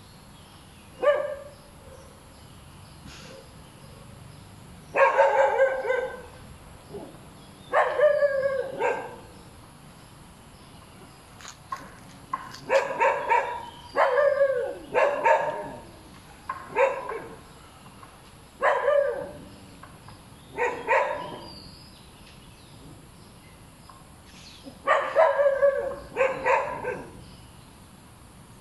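A dog barking over and over, in bouts of one to three short barks, each dropping slightly in pitch, with pauses of a few seconds between bouts.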